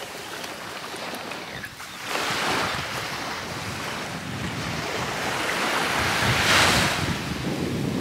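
Small waves breaking and washing up on a sandy beach, with one surge about two seconds in and a louder wash around six and a half seconds.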